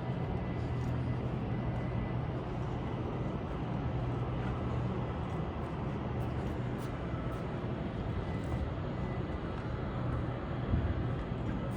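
Skate wheels rolling steadily over pavement: a continuous low rumble with a few faint small clicks.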